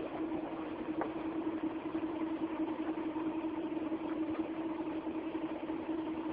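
Steady machine hum from a CNC plasma cutting machine, carrying one strong even tone, with a faint click about a second in.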